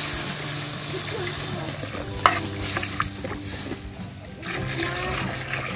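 Water poured into a metal wok of broth, splashing into the liquid and easing off about two seconds in, followed by a few light clicks.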